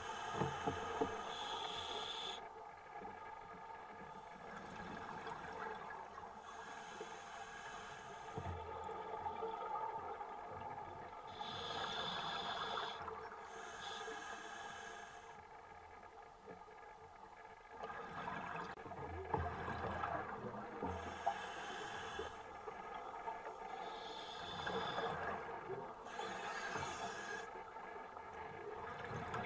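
Scuba diver breathing through a regulator, heard underwater: a hiss on each breath in, alternating with bubbling on each breath out, repeating about every four to five seconds.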